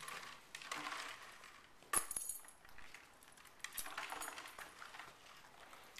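A dog knocking popcorn-filled clear plastic bottles around on carpet: the plastic crinkles and clatters in irregular bursts, with a sharp knock about two seconds in.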